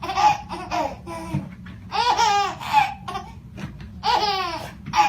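A baby laughing hard in repeated high-pitched bouts, one roughly every two seconds.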